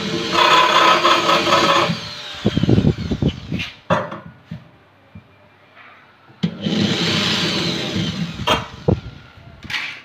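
Handheld corded electric drill running and drilling into the cabinet board, its motor whine falling away as the trigger is released about two seconds in. Knocks and rattles follow, then a second short drilling run that winds down the same way, and a few sharp clicks near the end.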